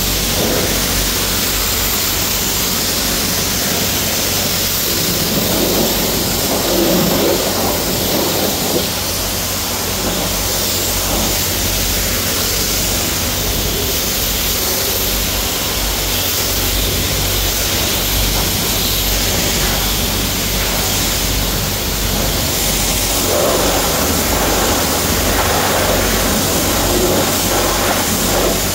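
Steady rushing hiss of a self-service car wash's high-pressure spray, with a low hum from the wash bay's pump underneath. The spray swells a little a few seconds in and again near the end.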